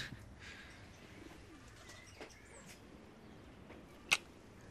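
Faint bird calls and pigeon-like cooing over quiet room ambience; about four seconds in, one short sharp smack of a kiss.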